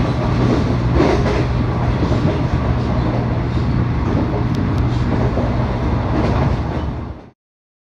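719 series electric multiple unit running at speed, with a steady low hum under the noise of wheels on rail and some clacks over rail joints. It cuts off suddenly near the end.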